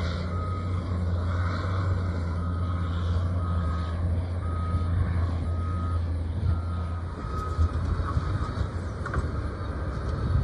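Heavy earthmoving machines running with a steady low engine drone, while a backup alarm beeps about once a second, stopping roughly three-quarters of the way through.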